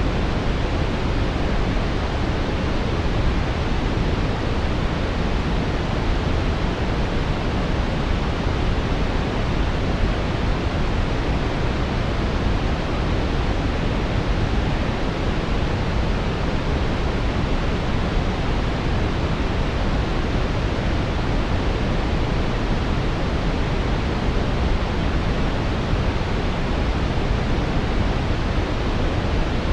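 Steady, unchanging brown noise: a deep, even rushing hiss with most of its weight in the low end, generated as a focus and masking sound.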